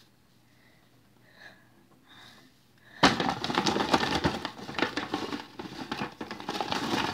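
Near quiet at first; about three seconds in, a paper gift bag starts rustling and crinkling loudly as a hand rummages around inside it.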